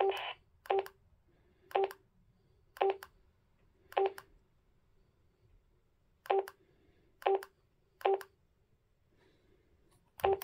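WURUI D300 mobile radio's key beeps as its menu buttons are pressed: short identical beeps about once a second, with a pause of about two seconds in the middle. Receiver hiss from the radio's speaker cuts off just after the start.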